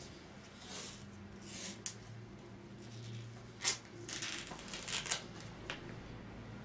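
38 mm rigid sports tape being pulled off the roll and pressed onto an ankle in a series of short peeling pulls, the loudest a little past halfway and several more close together soon after.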